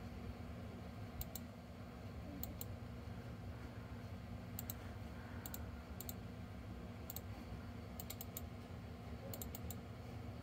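Computer mouse button clicking, a dozen or so sharp clicks, many in quick pairs like double-clicks, over a low steady hum.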